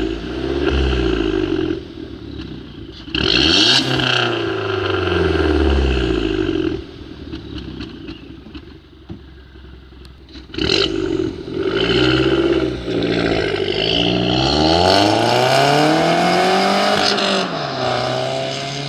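Audi A3 1.4 TFSI turbocharged four-cylinder with a decat and downpipe, heard at its exhaust tips while revved repeatedly standing still: the engine note climbs and falls several times, settling to idle between blips. Sudden bursts of hiss cut in about three seconds in and again near ten and a half seconds.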